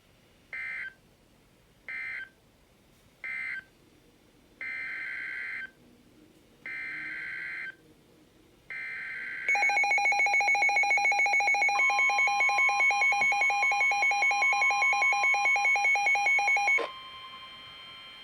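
Emergency Alert System SAME data bursts: three short warbling bursts that end the previous alert, then three longer header bursts for the next one. A loud, rapidly pulsing electronic attention signal follows for about seven seconds and cuts off suddenly. A quieter steady tone carries on after it.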